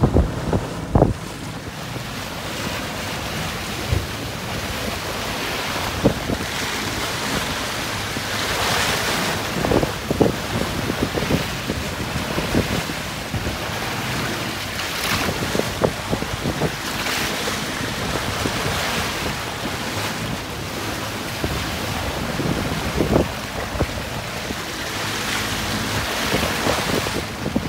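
Sea water rushing and splashing along a sailing yacht's hull in a large swell, with wind buffeting the microphone. The hiss of the wash surges every few seconds, with occasional sharp slaps.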